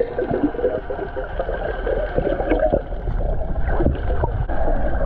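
Muffled underwater water noise picked up by a camera held below the surface: rushing, gurgling and crackling as a snorkeling swimmer moves through the water, with occasional short swishes.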